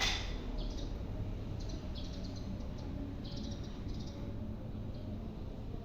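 Birds chirping in short, scattered high calls over a steady low rumble.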